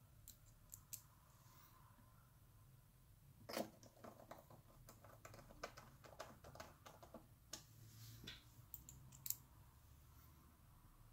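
Near silence broken by faint, irregular small clicks and taps, thickest in the middle with a sharper click about three and a half seconds in and another near nine seconds: a screwdriver and small metal parts handled while the iMac's LED backlight driver board is screwed back in place.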